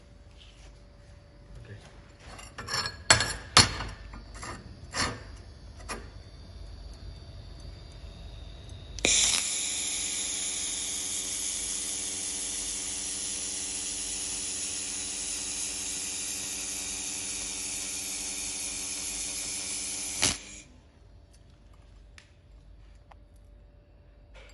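A few sharp knocks, then a handheld fiber laser welder running a weld on stainless steel with wire feed: a steady hiss with a hum beneath it, about eleven seconds long, that starts and cuts off abruptly.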